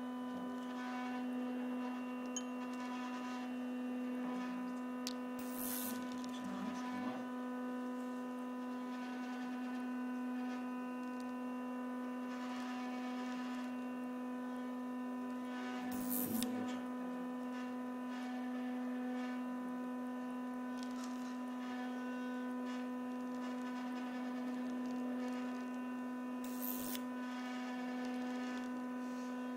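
A steady electrical hum with a stack of overtones above it, running unchanged. It is broken three times, about ten seconds apart, by a brief rushing swish.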